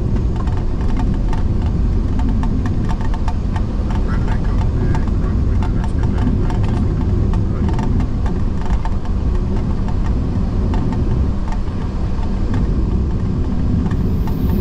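Steady cockpit rumble of an Embraer E-190 rolling along a wet runway, with many small ticks of rain striking the windscreen.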